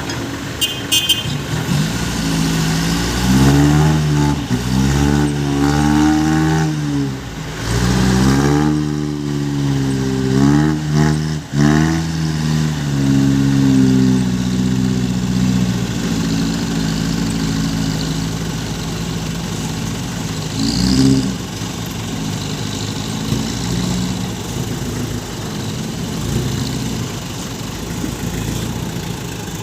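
Small six-wheel truck's engine revved up and down several times, then settling to a steady idle about halfway through.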